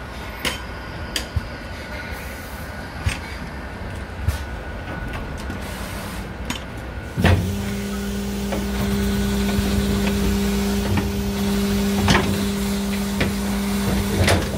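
Packer mechanism of a rear-loading electric garbage truck: a low run of scattered clicks and creaks, then a clunk about seven seconds in and a steady motor-driven hum as the packer blade moves through the bagged trash.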